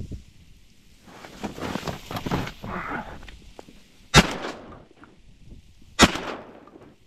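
Two shotgun shots about two seconds apart, each a sharp loud blast with a brief echo, preceded by a few seconds of rustling and handling noise as the gun is raised.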